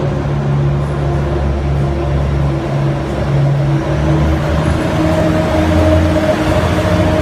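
Diesel subway work locomotive running loud and steady as it passes, a heavy engine drone over the train's rumble, its note shifting about halfway through as it goes by.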